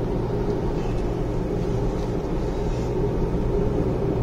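Steady running noise of a moving car heard from inside the cabin: engine hum and tyre noise on the road, even throughout.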